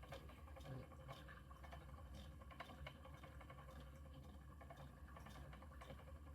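Faint, irregular light clicking of a treadle spinning wheel turning as yarn is spun, over a low steady hum.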